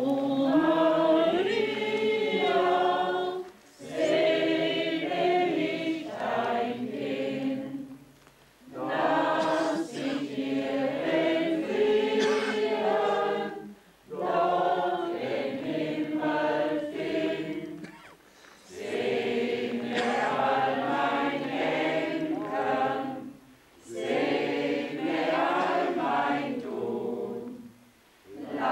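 A group of men and women singing a hymn together, unaccompanied, in phrases of about four to five seconds with short breath pauses between them.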